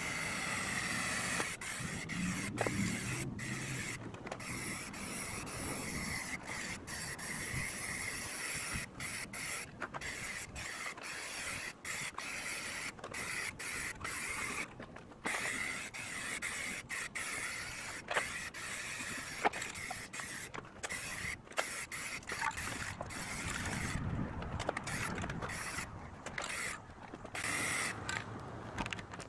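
Spray paint hissing from a nozzle in repeated long bursts, stopping and restarting with many short breaks, as a metal mower deck is coated.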